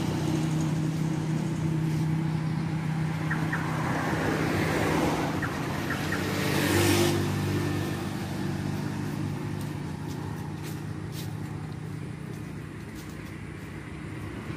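Vehicle engine idling steadily, with another vehicle passing by about seven seconds in.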